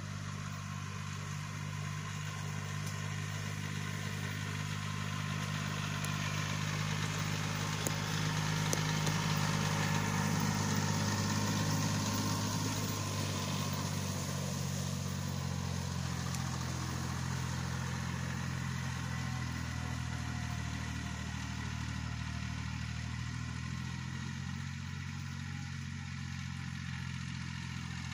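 Yanmar 1610 three-cylinder diesel tractor engine running steadily under load while pulling a hay rake. It grows louder as the tractor passes close, about a third of the way in, then fades as it moves away.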